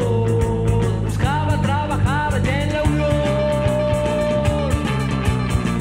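Blues-rock band playing an instrumental break between verses: a lead line of bent, sliding notes and a long held note over bass and a steady drum beat.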